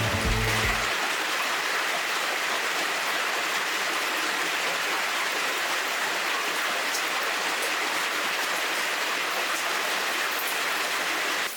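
Heavy rain falling steadily, an even, unbroken wash of noise; a little background music fades out in the first second.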